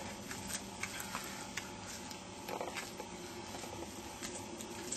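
Knife cutting and scraping along a sambar stag's spine to free the backstrap: faint, irregular ticks and short wet scrapes, with a slightly louder scrape about two and a half seconds in.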